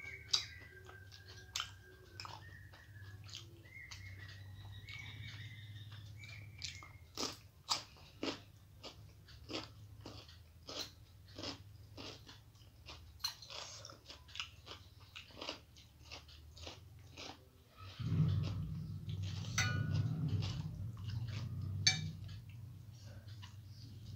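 Close-up chewing with crisp crunches, about one every half second to second, as fried bitter gourd (korola bhaja) is eaten. Birds chirp faintly in the background at first, and a louder low rumble comes in for the last few seconds.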